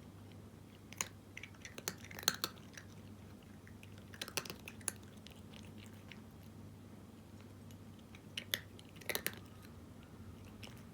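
A cat crunching dry kibble, chewing in three short bursts of crisp cracks with pauses between them, over a faint steady low hum.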